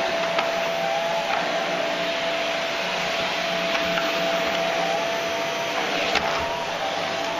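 Vacuum cleaner running steadily: a constant rushing hiss with a high steady whine. There are a few sharp knocks, the loudest about six seconds in.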